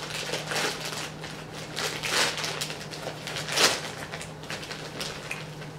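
Plastic mailer bag crinkling and rustling as it is handled and opened by hand, in irregular bursts, with louder crackles about two seconds and three and a half seconds in.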